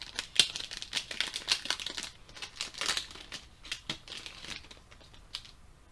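Foil wrapper of a Pokémon trading card booster pack crinkling and crackling as it is pulled open and handled by hand, dying away about four and a half seconds in, with one last crackle shortly after.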